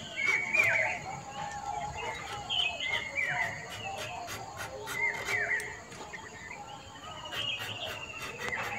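Birds calling: a short chirping phrase with a downward hook, repeated every second or two, and a longer falling whistle near the end, with a scatter of faint clicks.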